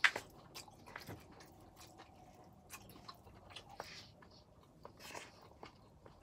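Close-miked chewing and lip smacking of pad Thai noodles, a string of short wet clicks, the loudest right at the start, with brief breathy bursts about four and five seconds in.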